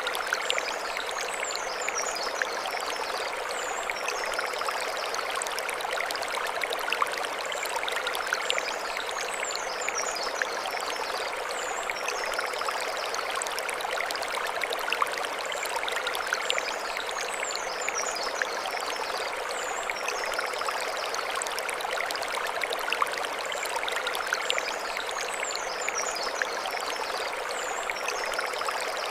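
Mountain stream flowing over stones: a steady, even rush of water. Short high chirps, each a quick group of sweeps, come back in the same pattern about every eight seconds.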